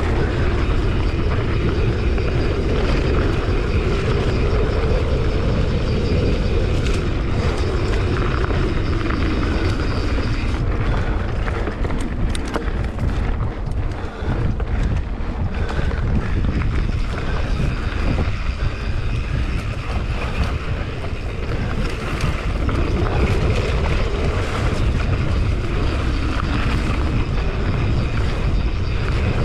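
Steady low rumble with wind noise on the microphone.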